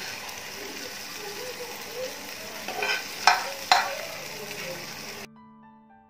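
Fried onion and tomato sizzling in a nonstick pan while a plastic spatula stirs and scrapes, with a few sharp knocks of the spatula against the pan about three seconds in. About five seconds in the sound cuts off abruptly to soft piano music.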